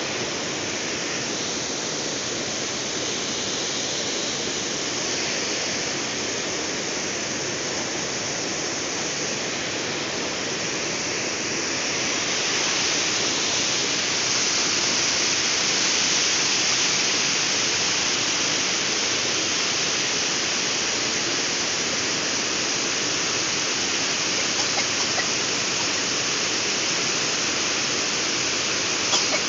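Water pouring over a concrete weir into a churning pool: a steady rush that grows louder about twelve seconds in.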